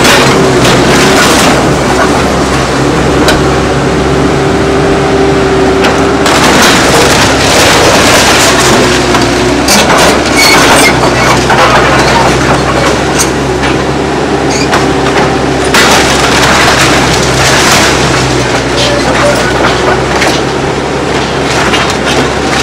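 Caterpillar tracked excavator's diesel engine running, with a steady drone and a higher whine that comes and goes, amid repeated cracking and clattering that is loudest from about six to ten seconds in and again around sixteen seconds in.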